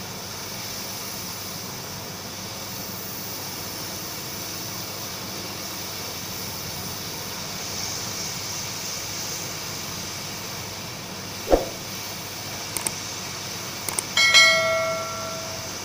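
Steady hiss of an SMD hot-air rework station blowing onto a phone's charging-port board to melt the solder on the faulty charging jack. Near the end, one knock, then two clicks and a ringing bell chime from a subscribe-button animation.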